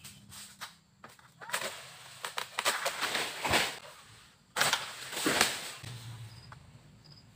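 Freshly sharpened egrek, a harvesting sickle on a long pole, pulled through oil palm frond stalks: sharp cutting and tearing strokes with rustling of palm fronds. They come in two bouts, about a second and a half in and again about four and a half seconds in.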